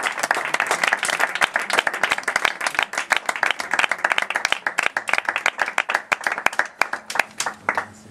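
Audience applauding at the end of a live acoustic song: dense clapping that thins out and dies down toward the end.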